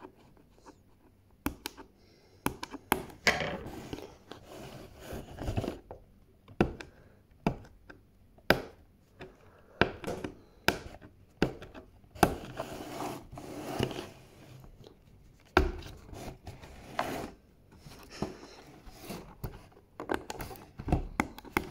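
Cardboard toy box being handled and pried at by hand: irregular taps and knocks, with scraping and rubbing of the cardboard between them, and the box now and then knocking on the tabletop.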